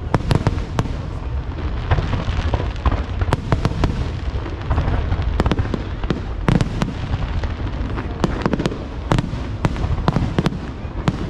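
Aerial fireworks display: a rapid, irregular string of sharp cracks and bangs over a continuous low rumble of shell bursts.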